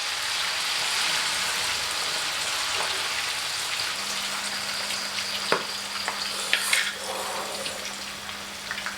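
Hoi tod batter of mussels, shrimp and squid frying in a generous amount of smoking-hot oil in a pan, a steady sizzle that eases slightly over the seconds. A couple of short clicks come near the middle.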